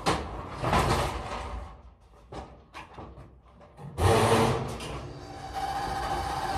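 Manual pallet jack being pulled over a steel dock plate into a box truck, its wheels rattling and clanking in bursts, loudest about four seconds in. Near the end a steady engine idle comes in underneath.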